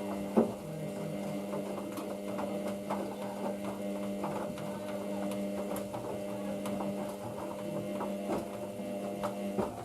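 Hoover DYN9144D3X washing machine running a Colours 40 wash on a load of towels: a steady motor hum with scattered soft knocks from the drum. The hum stops right at the end.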